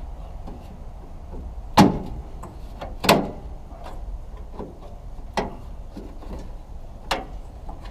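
Four sharp clicks and knocks, the loudest about three seconds in, as the clips holding a 1966 Chevrolet Impala's headlight trim are pried and popped loose with a screwdriver, over a low steady hum.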